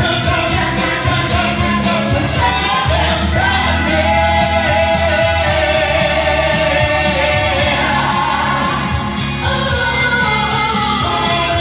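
Live singers performing a soul-pop song into microphones over amplified backing music with a steady bass line.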